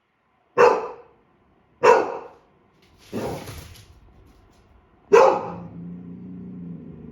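Golden retriever puppy barking: two sharp barks in the first two seconds, a short rushing noise about three seconds in, and a last loud bark about five seconds in that trails into a low steady drone.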